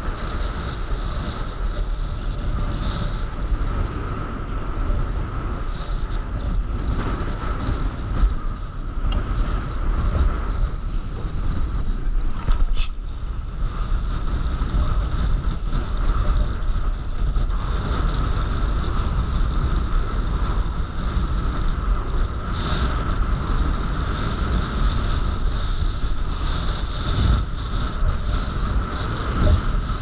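Wind buffeting an action camera's microphone over rough sea, with waves washing around a stand-up paddleboard; one sharp knock about halfway through.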